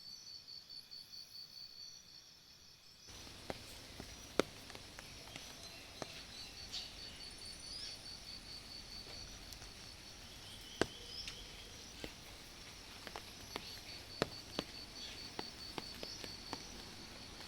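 Faint insect chirping, likely crickets, in a fast even pulse of high notes. About three seconds in the background noise rises and scattered sharp ticks and clicks start.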